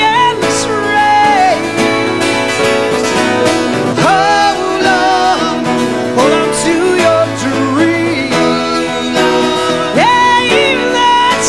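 A live song: a man's voice singing over a twelve-string acoustic guitar, with piano accompanying.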